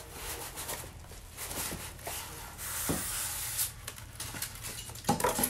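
Cardboard box and plastic wrapping rustling and crinkling as a boxed LED flood light is lifted out of its packaging, with a few sharp knocks about five seconds in.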